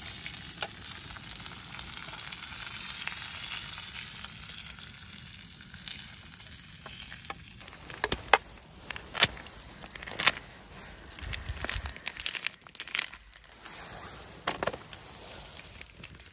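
Food sizzling in a frying pan: a steady hiss that thins out after about six seconds, followed by a series of sharp clicks and knocks.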